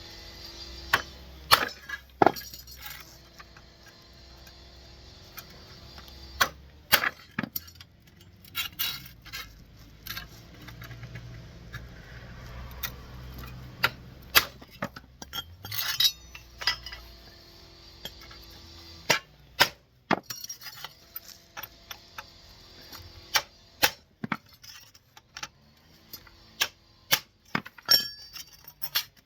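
Irregular sharp metallic clinks and knocks, a few loud ones among many light ones: hand tools and sheet steel being handled and tapped during body repair work.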